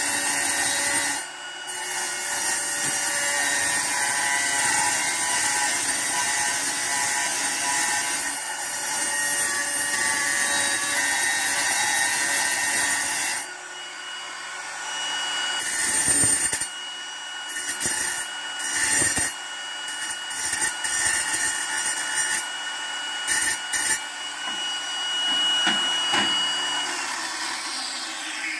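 Angle grinder cutting tile: a loud, dense grinding with a brief break about a second in. About halfway the long cut ends and a grinder runs with a steady high whine, biting the tile in short grinding strokes, then winds down near the end.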